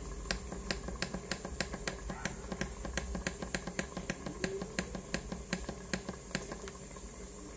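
Rapid, evenly spaced clicks, about three or four a second, as the up-arrow timer button on a Tefal CY505E40 multicooker's control panel is pressed repeatedly to set the cooking time. A faint steady hum sits underneath.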